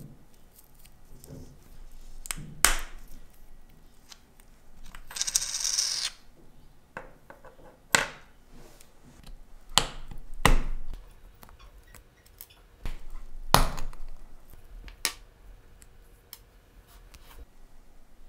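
Small sharp metal clicks and taps, about six spread out, from handling and opening a vintage wristwatch case with a tool, with a short scraping rasp about five seconds in.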